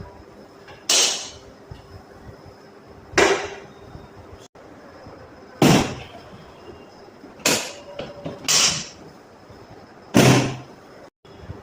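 Six sharp, loud cracks, a second or two apart, from chiropractic neck and back adjustments, each short and fading quickly.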